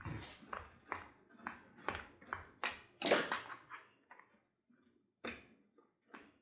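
Block of cheese being shredded on a box grater: repeated rasping strokes, about two a second, thinning out to a couple of single strokes after about four seconds.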